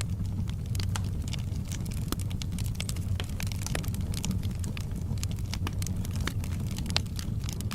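Campfire crackling: frequent irregular pops and snaps over a steady low rumble, with one sharper pop about seven seconds in.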